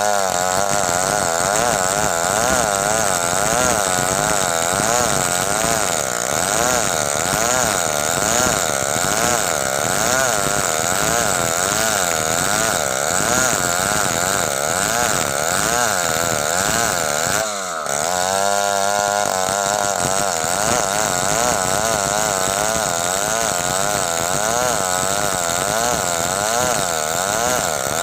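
Stihl chainsaw running under load while cutting wood, its engine pitch wavering steadily up and down. About two-thirds of the way through, the engine drops briefly, then revs back up.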